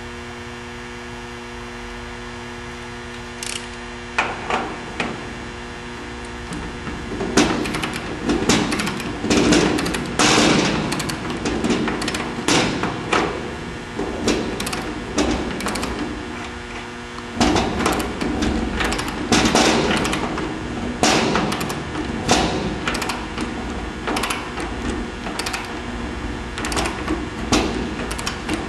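Steady mains hum, then from about four seconds in, irregular metallic clicks and knocks in quick bursts as a torque wrench is set and put to work on the clamp ring's nut.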